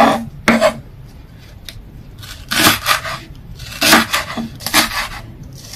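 A kitchen knife chopping green onions on a cutting board: short, sharp cuts at an irregular pace, a few a second, with brief pauses between runs.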